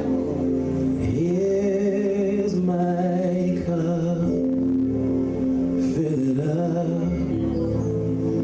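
Gospel praise-and-worship music: sustained keyboard chords with a voice singing long, wavering notes.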